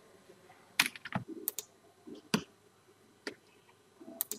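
Scattered clicks of a computer keyboard and mouse, about eight in all, irregularly spaced and some in quick pairs.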